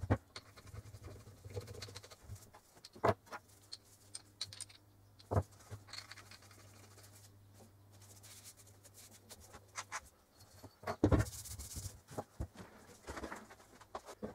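Metal hand tools and a hand crank drill handled and set down on a cloth-covered workbench: scattered knocks and clicks with rubbing and scraping between, busiest about two-thirds of the way through.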